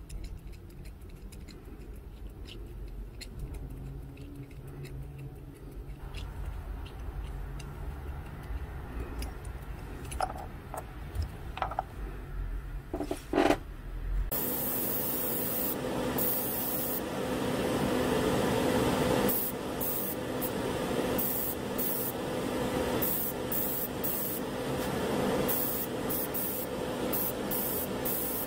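A 1 mm drill bit in a hand pin vise twisting into a small plastic part, quiet apart from a few light clicks. About halfway through, the steady hum and rush of spray-booth extraction fans begins, and an airbrush hisses on and off in short bursts over it.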